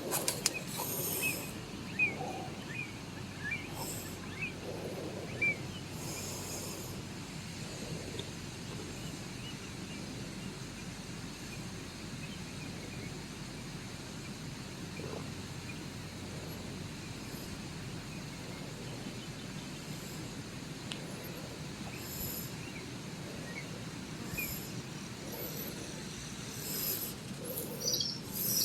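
Countryside ambience: a steady low rushing background with scattered short bird chirps and a few brief high-pitched buzzes, a cluster of them near the end.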